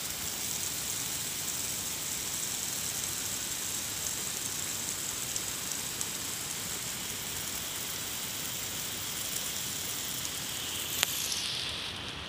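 Water spraying from a garden hose, a steady hiss of spray falling on plants. A click about a second before the end, then the hiss falls away and quietens.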